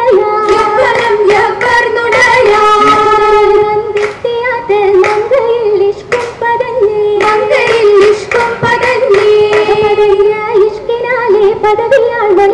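Girls' voices singing an oppana song in chorus, with sharp hand claps beating time throughout.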